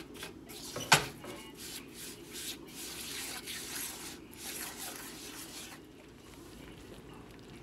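Silicone spatula stirring and scraping a thick brown sugar and butter syrup around a nonstick skillet in quick repeated strokes, with a sharp knock about a second in. The strokes stop about six seconds in as the syrup heats toward a slow simmer.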